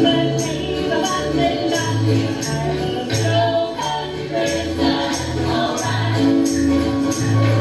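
Live country music: a tambourine shaking on the beat over a bouncing bass line that alternates low notes, with other instruments carrying the tune.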